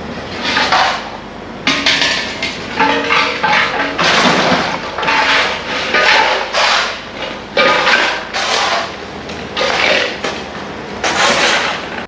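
Construction rubble being loaded by hand into a tractor trolley: a run of scraping, clattering bursts, roughly one a second, with some metallic clanks, over a steady background hum.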